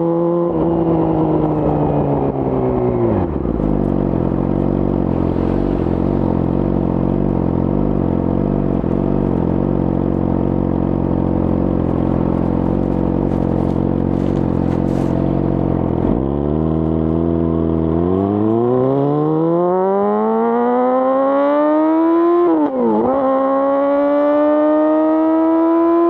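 Yamaha R6's inline-four engine through an Akrapovic full exhaust: revs falling as it slows, then idling low and steady for about twelve seconds. It then pulls away, revs climbing, with a quick drop and recovery at an upshift about 23 seconds in, and climbs again.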